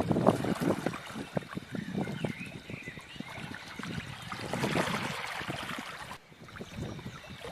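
Stream water trickling and splashing irregularly, swelling into a fuller gush about four to five seconds in.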